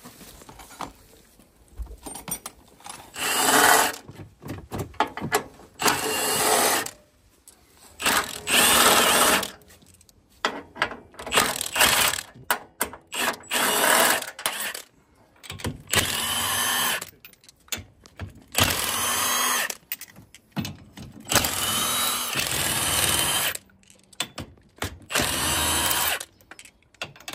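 Milwaukee M18 FUEL cordless impact wrench running in repeated bursts of about a second each. Its whine rises and falls within each burst, and short clicks and clinks of the socket and parts fall between the bursts.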